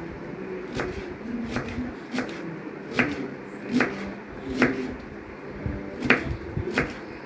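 A knife chopping onion on a cutting board: a series of sharp knocks, about one a second, at an uneven pace.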